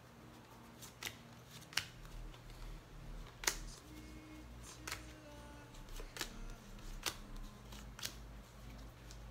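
Playing cards dealt one at a time from the hand onto a pile on a table mat, each card giving a short crisp click, one every second or so.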